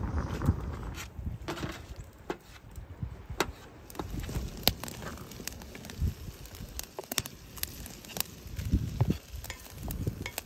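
Wood campfire crackling with scattered sharp pops, under a cast-iron skillet of meat frying on a grate over the fire.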